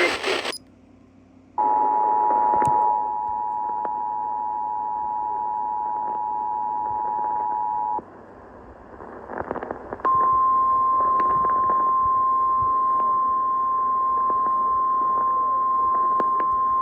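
Emergency Alert System two-tone attention signal held for about six seconds, then after a short gap a single steady, slightly higher tone from about ten seconds in: the 1050 Hz NOAA Weather Radio warning alarm tone, which marks the warning about to be read again. A faint radio hiss lies under both tones.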